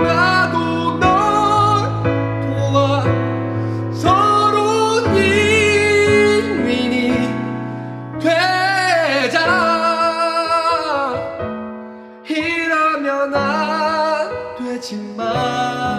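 A voice singing a slow ballad over piano accompaniment, with long held notes that waver in pitch.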